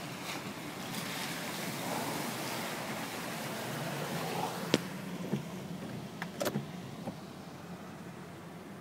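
Car cabin noise while driving on a wet road: a steady hum of engine and tyres that swells and then eases off. A sharp click comes near the middle, followed about a second and a half later by a few knocks.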